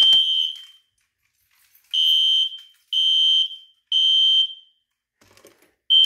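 A Simplex fire alarm pull station is pulled with a sharp click, and a System Sensor SpectrAlert horn goes into alarm with a high electronic tone. It sounds the temporal code-3 evacuation pattern: three short blasts, a pause, and then the cycle starts again.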